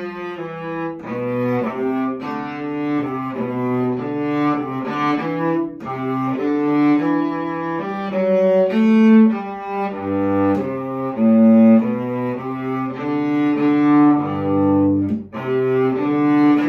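Two cello parts of a duet bowed together, a higher melody over a lower harmony line, in sustained notes that change every half second to a second or so.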